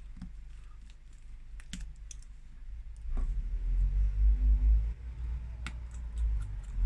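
Light clicks and taps of small phone parts and tools being handled during reassembly, with a low rumbling handling noise from about three and a half seconds in.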